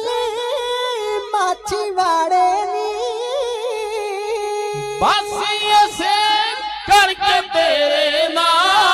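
Men singing a Punjabi Sikh religious song unaccompanied, in loud, high, long-held notes with wavering, ornamented pitch. Toward the end a second, older singer takes up the line.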